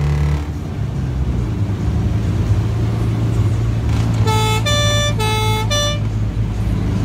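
Citroën 2CV's air-cooled flat-twin engine running steadily under way through a stainless steel exhaust, heard from inside the car with the roof rolled back. About four seconds in, a horn gives four short notes alternating between two pitches.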